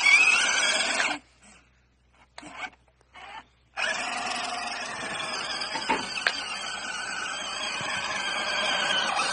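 WPL C54 1/16 RC truck's small 260 electric motor and gearbox whining under throttle: a burst in the first second, a few short blips, then held throttle from about four seconds in as the truck bogs down and gets buried.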